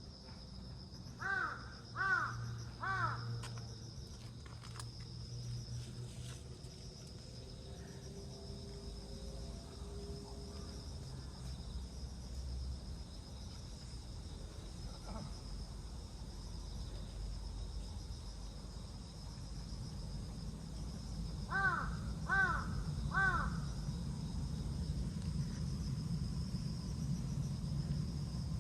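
A crow cawing three times in quick succession, then three more caws again later, over a steady, high-pitched drone of insects.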